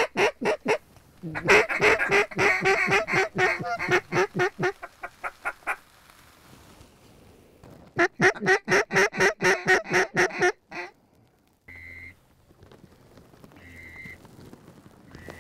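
Hunters blowing mallard duck calls: long runs of loud, rapid quacks, the first tapering off over several seconds and a second starting about eight seconds in. Near the end a few faint short high notes.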